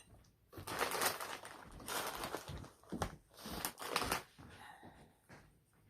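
Shrimp crackers being crunched close to the microphone, in several separate bursts of crackly noise.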